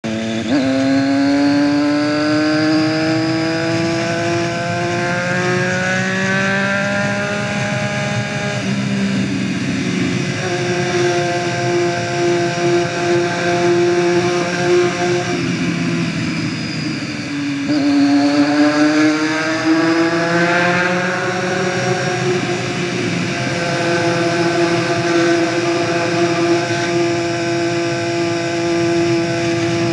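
Motorcycle engine running hard, its pitch climbing steadily for several seconds under acceleration. It drops about nine seconds in and holds steady, dips again past the middle, then climbs once more and settles into a steady high drone.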